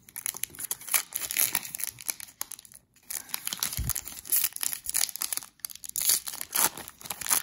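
Foil wrapper of a 2014 Bowman baseball card pack being crinkled and torn open by hand, with a brief pause about three seconds in.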